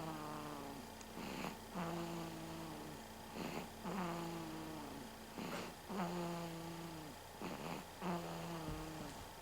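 Baby snoring in sleep, about one breath every two seconds: each breath is a short rasping rush followed by a humming, pitched snore tone that sinks slightly over about a second.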